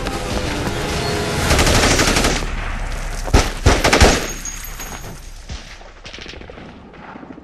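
Film gunfire: a rapid burst of automatic fire, then three loud single shots in quick succession a few seconds in, then fainter scattered shots.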